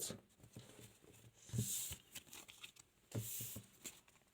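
Paper being handled on a table: two short, faint rustling swishes about a second and a half apart, with light taps between them.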